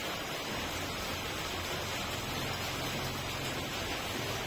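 Steady rain falling on a leafy tree, an even hiss with no separate drops standing out.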